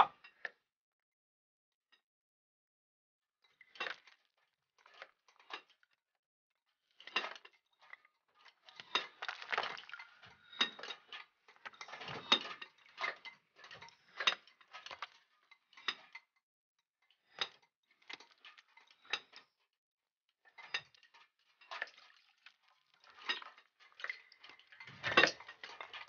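Pickaxes striking rock: scattered sharp metallic clinks and knocks at an uneven pace, as from several miners at once, beginning a few seconds in.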